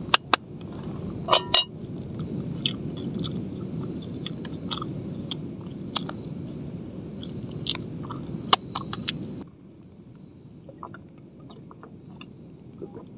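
Someone eating ghost crab and rice by hand: scattered sharp clicks and clinks of crab shell and plate, with chewing, over a steady low background rumble that drops away about nine and a half seconds in.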